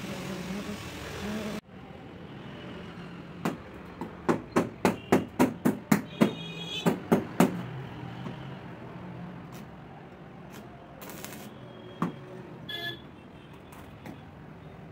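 Hammer blows on the tack-welded seam of stainless steel sheets: a quick run of about a dozen sharp metallic knocks over some four seconds, a few of them ringing, then a few scattered knocks.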